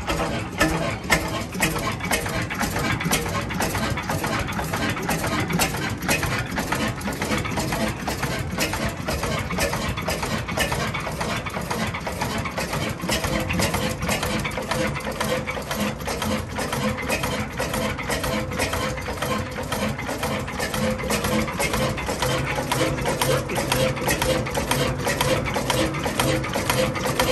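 1919 Hornsby 6 hp single-cylinder horizontal stationary engine running on its first start, its valve gear clicking and knocking in a regular beat under the steady run of the engine.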